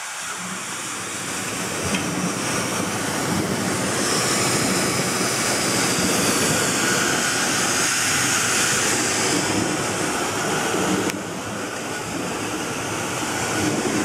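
Prototype buoyancy engine running with its pump on: a steady rushing noise from the tank and hoses. It swells for several seconds in the middle, then drops suddenly about eleven seconds in.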